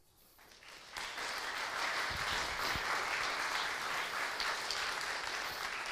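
Audience applauding: it starts faintly and swells within the first second into steady applause.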